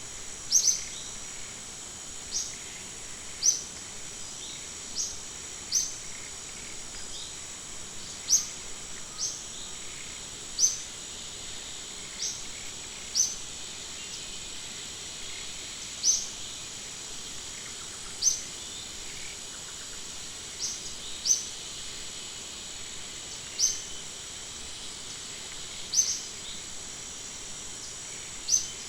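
Short, high-pitched chirps repeat irregularly, about one every one to two seconds, over a steady high insect drone.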